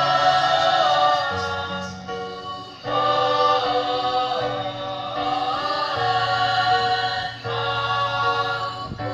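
A choir singing a hymn in parts, with long held notes. The phrases break off briefly about two and a half seconds in, and again near the end, before the next phrase starts.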